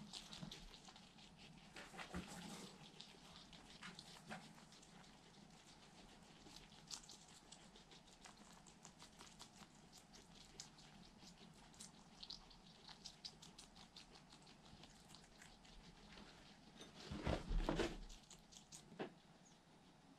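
Guinea pigs chewing leafy greens and cucumber: a steady run of faint crisp chewing clicks with light rustling in the bedding, and a louder brief rustle and bump near the end.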